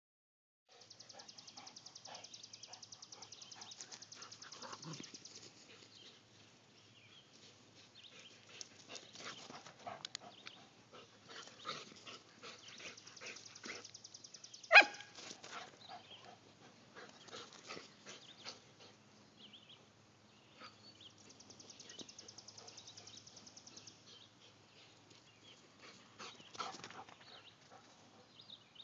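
Dogs playing on a lawn, with one loud, sharp bark about halfway through and light scuffling between. A high, rapidly pulsing buzz comes in near the start and again later.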